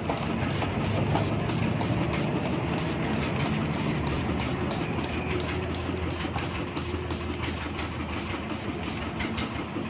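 Pressure-washer spray cleaning a car's rear drum-brake backing plate and hub: a steady hiss of the jet over the low, even hum of the washer's motor.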